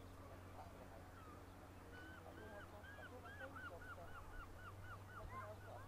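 Gull calling: a faint run of about a dozen quick, repeated yelping notes starting about two seconds in and coming closer together, over a low steady hum.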